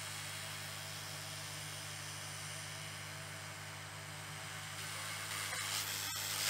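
Creality 10 W laser module on an Ender-3 S1 3D printer cutting 3 mm plywood: a steady low machine hum under a hiss. The hiss grows louder near the end, with a small click.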